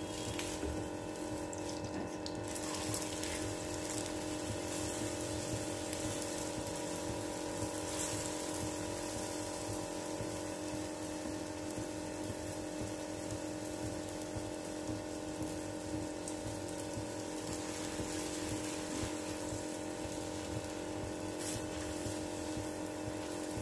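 Puran poli frying in ghee on a flat tawa griddle: a steady sizzle, with a constant hum underneath.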